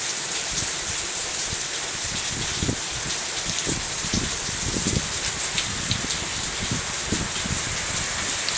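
Heavy downpour: a dense, steady hiss of rain, with irregular low thumps through the middle.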